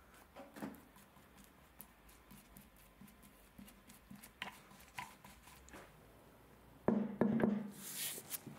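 Light clicks and taps, then near the end a louder stretch of scraping and knocks as the piano stool's greased threaded screw is set into and turned in the metal threaded fitting on its wooden base.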